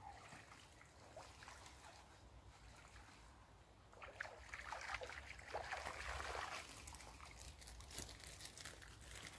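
Faint trickling and splashing of water as a fishing keepnet is pulled out of a pond and drains through its mesh, starting about four seconds in.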